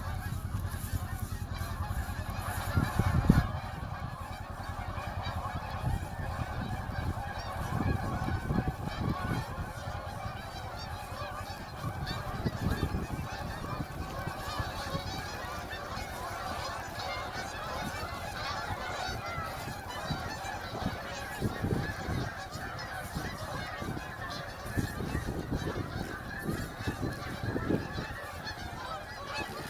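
A large flock of a few hundred Canada geese honking together in a continuous, overlapping din, very loud, as the flock takes off. Low gusts of wind buffet the microphone now and then.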